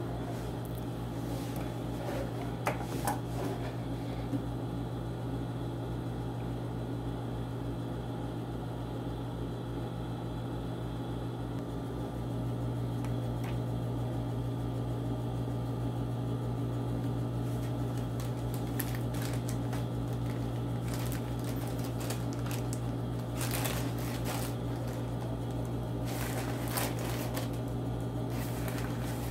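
Sewing machine running: a steady motor hum that gets a little louder about twelve seconds in, with fabric being handled a few times later on.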